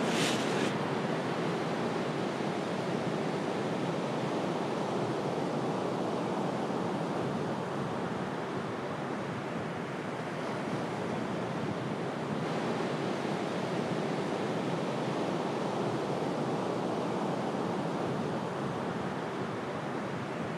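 Sea surf washing onto a pebble beach, a steady rush of waves with no break. In the first second there is a short crinkle of a plastic bag being handled.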